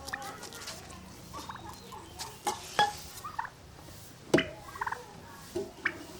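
Ducks quacking in short, scattered calls, with a few sharp knocks; the loudest knock comes a little past the middle.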